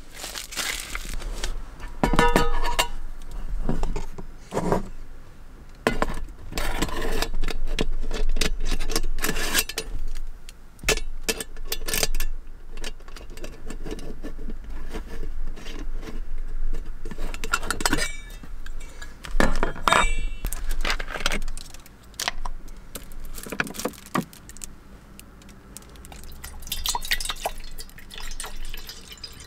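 Small clinks and knocks of glass and tableware being handled, a series of separate taps, with a couple of brief ringing clinks late on.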